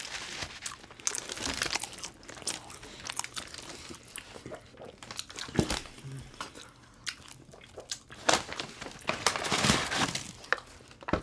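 Close-up eating sounds: irregular biting and chewing of sandwiches, with paper wrappers crinkling, most densely near the end.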